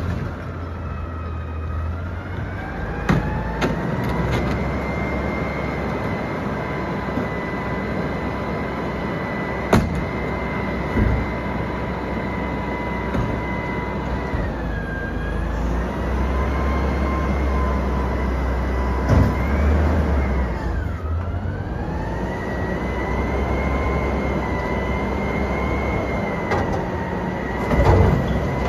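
Autocar Xpeditor front-loader garbage truck's engine revved up and held with a steady whine, dropping back twice and rising again. Several thumps come from trash being thrown into the carry can on its front forks, and the loudest comes near the end as the can is lifted.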